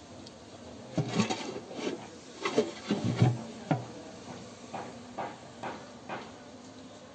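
A run of irregular knocks and scrapes, bunched together early and thinning to a few separate taps later on.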